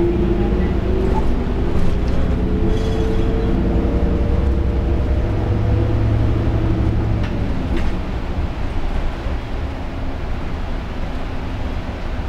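Diesel city bus heard from inside, its engine and drivetrain pulling away with a whine that rises slowly over the first few seconds, then a steady low drone that eases off about eight seconds in, over steady road noise.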